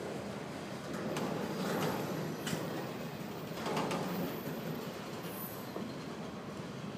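Freight train of enclosed autorack cars rolling past, its steel wheels rumbling steadily on the rails with a few sharp clanks in the first four seconds.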